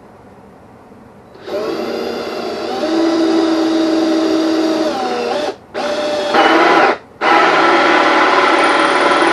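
Power drill driving a hole saw into very hard plywood. It starts about a second and a half in, stops briefly twice and starts again.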